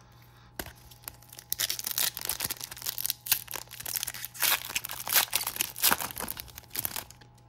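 Foil wrapper of a trading-card pack being torn open by hand: sharp crinkling and tearing crackles that start about half a second in and come in quick, irregular bursts until near the end.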